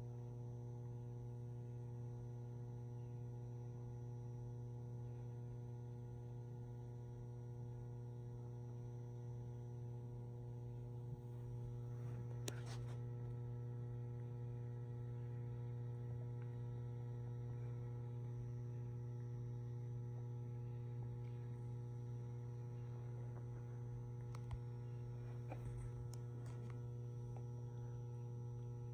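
Ballast of a 150-watt high pressure sodium flood light humming steadily at a low pitch, with a faint tick or two midway.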